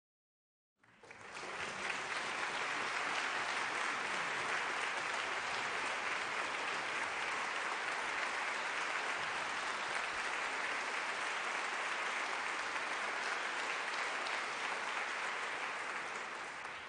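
A large concert-hall audience applauding steadily. The applause fades in about a second in and begins to die away near the end.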